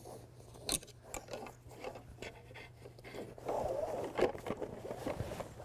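Canoe frame parts being handled and slid into a cloth packing sleeve: light clicks and knocks, then a longer rustling scrape about halfway through.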